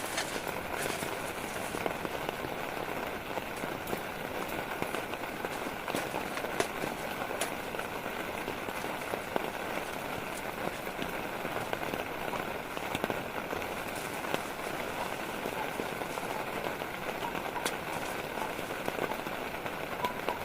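Rain falling steadily, with scattered sharp taps of individual drops.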